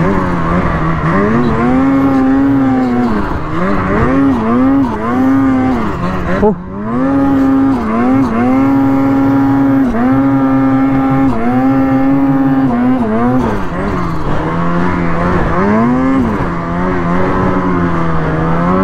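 Ski-Doo Freeride 146 snowmobile's turbocharged two-stroke engine under way, its pitch climbing and falling with each throttle change. It drops away briefly about six and a half seconds in, then picks back up. The rider says the sled is running weird and not happy, and fears the turbo is not running right or the reeds are blown.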